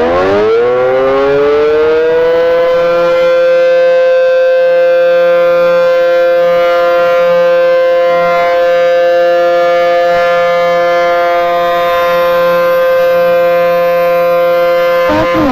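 Outdoor warning siren winding up, its pitch rising over the first couple of seconds, then holding a loud, steady tone.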